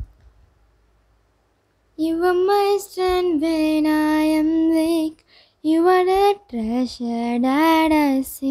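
A woman singing unaccompanied in long, held notes, starting about two seconds in after a short silence.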